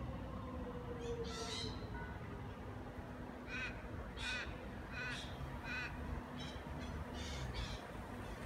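A crow cawing repeatedly: about ten short, harsh caws in loose runs, over a steady low hum.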